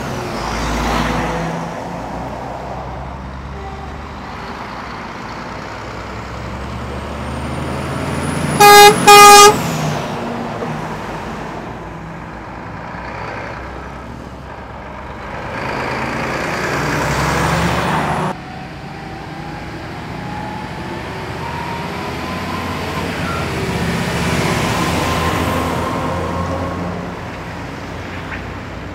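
Heavy Volvo FH trucks with low-loader trailers driving past, their diesel engines running under load and swelling as each one passes. About nine seconds in, a horn gives two short, loud blasts in quick succession.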